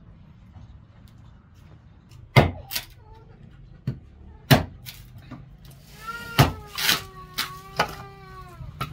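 Small hatchet chopping into a wooden stick: about nine sharp knocks at uneven intervals, the loudest a couple of seconds in. A long, high, drawn-out call sounds over the later blows.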